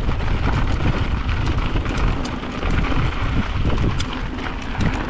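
Mountain bike riding fast down a rough dirt and rock trail: tyres crunching over the ground with a constant patter of clicks and rattles from stones and the bike. Wind rumbles heavily on the microphone.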